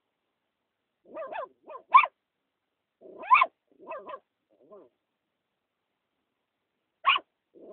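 A puppy barking and yipping in short, high-pitched calls, a quick string of them over the first five seconds, then a pause and one more bark near the end.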